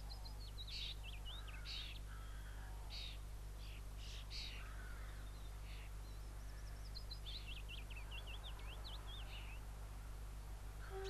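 Birds calling over a steady low drone: short sharp calls come throughout, and a quick run of twittering song starts about seven seconds in. The drone is the English Electric Class 37 diesel locomotive approaching in the distance.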